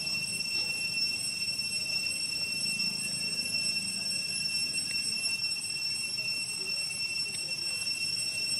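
A steady high-pitched drone that holds one unchanging pitch, over a faint low rumble.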